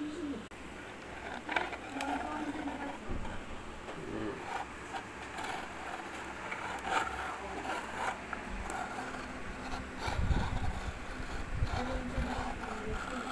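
Scraping, clicks and rattles from handling a wooden box crayon sharpener and its pull-out shavings drawer, with a low rumble about ten seconds in.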